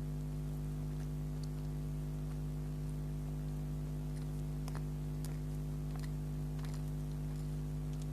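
Steady electrical hum with a scattering of faint, soft mouth clicks from someone chewing soft bakery food close to the microphone.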